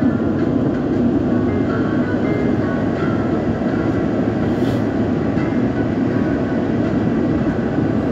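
Steady rumble and roar of an Airbus A350 airliner's engines and airflow heard inside the passenger cabin, with no pauses or single bangs.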